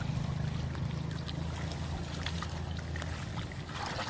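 Stream water trickling and splashing, with small scattered splashes. Under it a steady low hum fades out about three seconds in.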